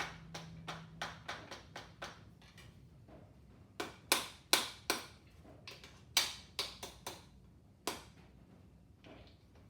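Sharp metal clicks and taps from handling a piston ring compressor clamped around an engine piston. They come evenly, about three a second, at first, then a handful of louder ones between about four and eight seconds in.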